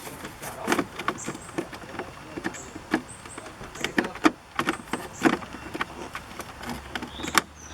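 Irregular plastic clicks and knocks from handling the parts of a car's power window switch assembly.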